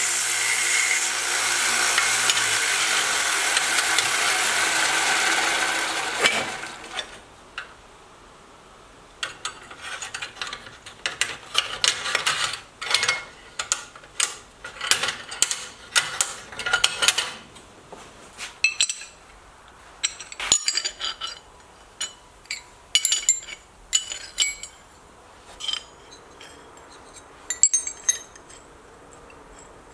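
Small 1-inch bench belt sander running as steel hinge knuckles are ground against the belt, then winding down about six seconds in. After that, a long run of irregular light metallic clicks and clinks as the forged steel hinge leaves and a round-stock pin are handled and fitted together.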